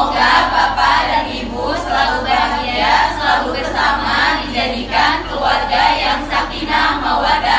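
A group of voices singing together, loud and continuous.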